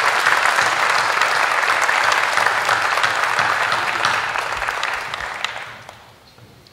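Audience applauding, a dense patter of many hands clapping that thins out and dies away about five to six seconds in.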